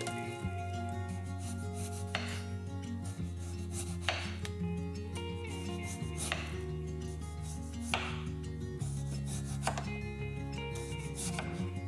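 Kitchen knife slicing a raw potato into rounds on a wooden cutting board, with about six separate cuts spaced a second and a half to two seconds apart.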